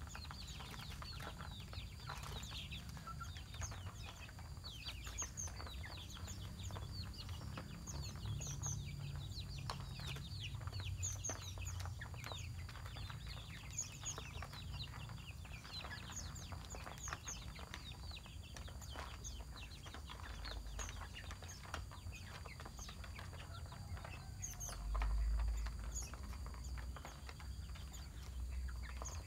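Small birds chirping over and over in short, high, downward-sliding calls, with chickens clucking among them. A low rumble runs underneath and grows louder for a moment about 25 seconds in.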